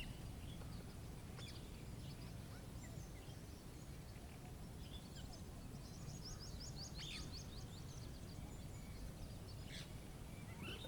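Small birds chirping with scattered short high calls, and a quick run of about ten high notes about six seconds in, over a steady low rumble.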